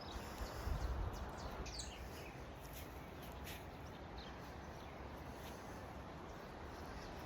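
Faint, short bird chirps over a steady background hiss, with a brief low rumble about a second in.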